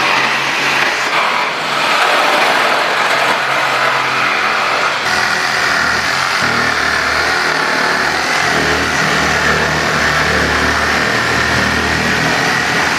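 Mini cordless electric saw's motor running steadily, with a deeper low hum joining in about six and a half seconds in.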